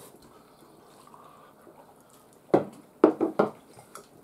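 Eating at a table: quiet for the first couple of seconds, then four sharp clicks in quick succession past the middle, from a fork and glass tableware and mouth sounds while eating noodles.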